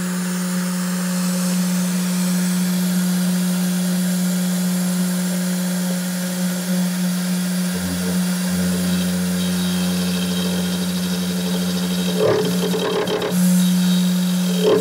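3018 CNC router's spindle running steadily as its end mill cuts into an aluminum block, a steady whine with a hiss over it. The sound turns rougher for about a second roughly twelve seconds in.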